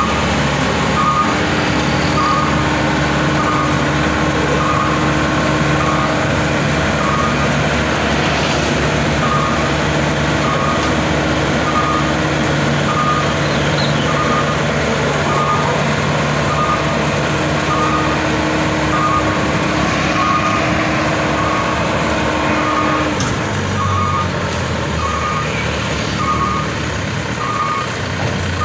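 Maxxi Bimo 102L crawler combine harvester's engine running steadily as it climbs loading ramps onto a truck, with a warning beeper sounding about once a second. About 23 seconds in the engine note drops, while the beeping carries on.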